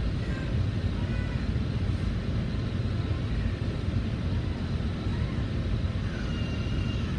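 Volvo B9TL double-decker bus's six-cylinder diesel engine idling at a standstill, a steady low rumble heard from inside the upper deck, with a few faint high chirps over it.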